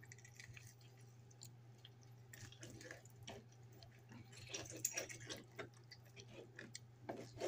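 Faint wet squishing and soft clicking of a whole raw chicken being cut open along its back and handled to butterfly it. A low steady hum runs underneath.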